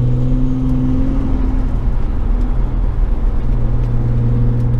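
Single-turbo Audi 3.0T V6 engine running at a steady, light-throttle cruise, heard from inside the cabin as a constant low drone with road noise underneath.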